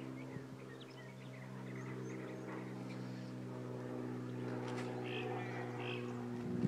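A steady mechanical hum that holds one pitch throughout, with short bird chirps over it.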